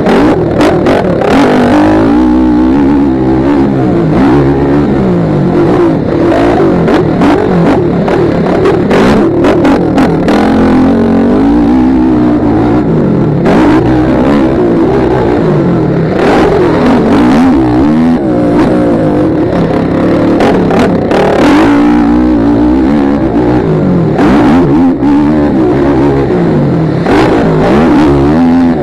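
Motocross bike engine revving hard, its pitch repeatedly climbing and dropping with throttle and gear changes, heard close up from the rider's helmet. Short rough knocks and buffeting on the microphone come and go throughout.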